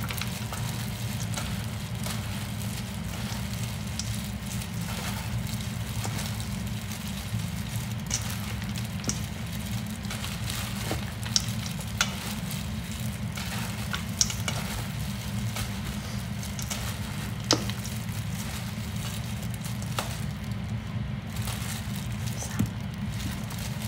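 Gloved hands tossing a shredded-vegetable salad in a stainless steel bowl: a steady wet rustling and crackling of the vegetables and plastic gloves, with a few sharp clicks scattered through, over a steady low hum.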